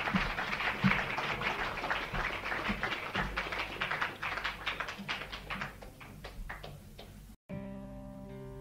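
Audience applauding, the clapping thinning out and getting quieter. Near the end the sound cuts out for a moment, then an acoustic guitar starts playing sustained notes.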